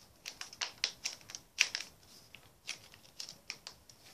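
Stiff sheets of paper, glued together, crackling and rustling as they are folded and creased by hand: a run of sharp, irregular crackles, the loudest about one and a half seconds in.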